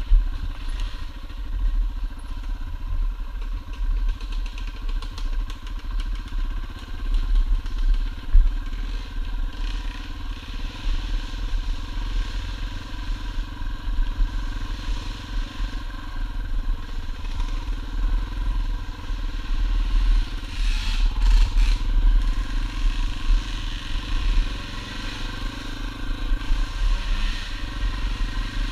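Dirt bike engine running while riding a trail, its note rising and falling with the throttle. A short cluster of knocks and clatter about two thirds of the way through.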